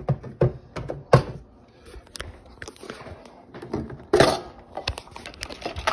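Kitchen things being handled on a countertop: a run of clicks and knocks, with a louder scraping rustle about four seconds in.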